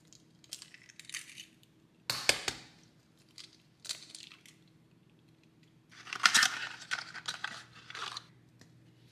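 Eggs cracked into a mixing bowl: a sharp crack about two seconds in, a smaller crack about two seconds later, then a longer crunching, crinkling rustle of eggshell being broken apart and handled.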